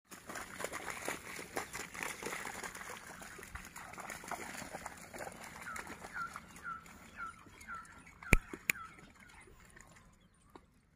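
Outdoor birdsong: a busy scatter of short chirps in the first half, then one bird repeating a short hooked chirp about twice a second. Two sharp clicks a little after eight seconds are the loudest sounds.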